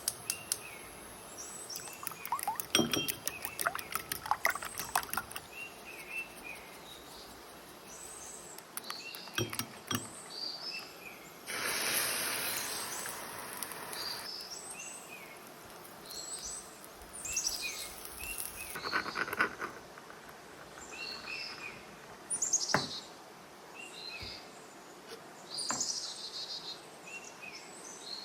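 Birds chirping over and over in the background, with scattered light clicks and taps, and a few seconds of steady hiss about twelve seconds in.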